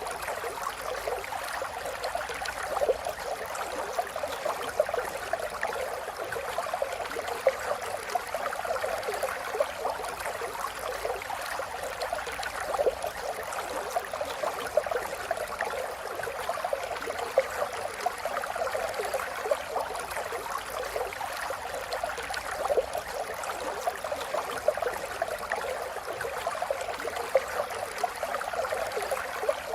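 River water flowing steadily, a continuous rushing babble full of small splashes and gurgles.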